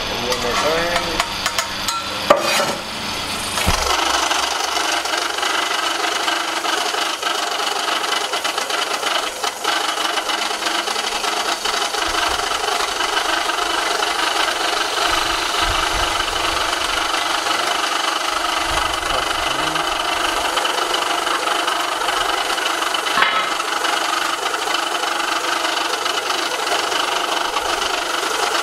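Benchtop electric grinding mill running steadily with a gritty, rasping noise as it grinds graphite ore. It follows a few seconds of metal pans clattering at the start.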